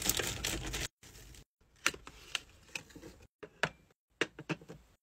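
Crinkling of tissue and shredded packing paper for about a second, then a string of light, separate taps and clicks of fingernails on a clear plastic drawer set.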